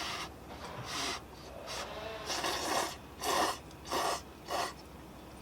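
A person slurping udon noodles: a series of short, noisy slurps, roughly one every half second to a second.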